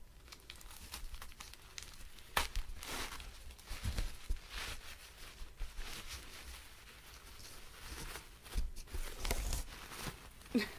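Tissue paper being unwrapped by hand from a small doll part: irregular rustling and crinkling, with a few sharper crackles.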